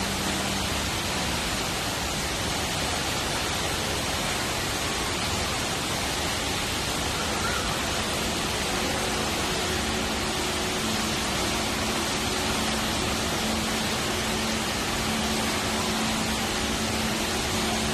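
The Rain Vortex indoor waterfall pours steadily into its pool below, an even, unbroken rush of falling water.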